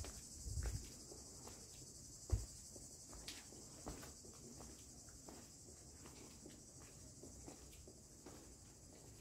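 Insects chirring steadily and high in summer heat, with the walker's faint footsteps on stone paving at about two a second. A short low thud comes a little over two seconds in.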